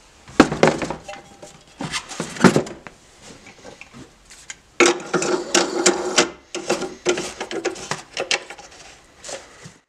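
A space-saver spare wheel being handled into a car's trunk well: irregular knocks and thuds as the tyre hits the well's plastic and metal, loudest about half a second in and again after two seconds. From about five seconds in there is a busy run of rubbing and clicking as the wheel is settled and its hold-down knob is turned.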